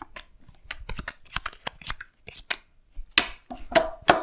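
Playing cards slapped down one after another on a wooden tabletop in a quick card game, a rapid run of sharp taps that gets louder near the end.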